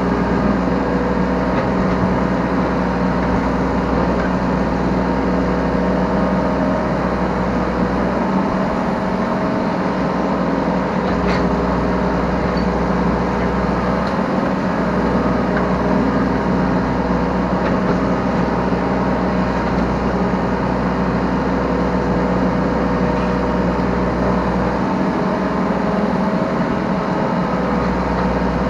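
Yanmar B3Σ 3-ton mini excavator's diesel engine running steadily, heard from the operator's seat while it digs and loads. Its deep low rumble dips a few times.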